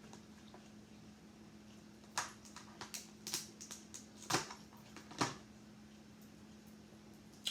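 Close-miked eating sounds: a run of short crunches, clicks and wet mouth sounds from about two seconds in until just past five seconds, over a steady low hum.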